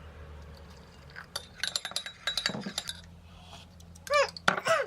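Kitchenware clinking: a run of light clicks and taps of glass or dishes. Near the end come two short sounds that slide down in pitch.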